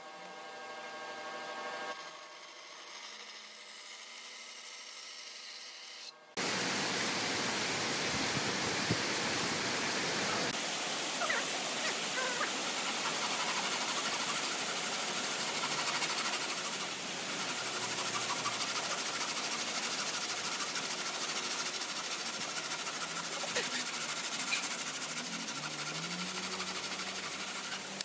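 Band saw motor running with a steady hum for about six seconds. Then, from a sudden change, a louder steady rasping noise as a hand frame saw cuts through a softwood board.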